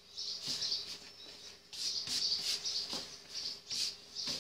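Hands kneading a soft kefir dough on a floured table: short, high, sticky squelching sounds, two or three a second, with a brief pause about a second in.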